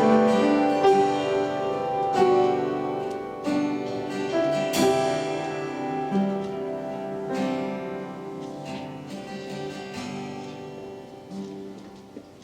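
Instrumental music: a run of separate plucked or struck notes that ring and die away, growing steadily quieter toward the end.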